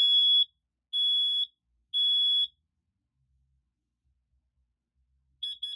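Kidde smoke alarm sounding on test: three long, high beeps about a second apart in the temporal-three fire-alarm pattern, a pause of about three seconds, then a quick run of short beeps near the end.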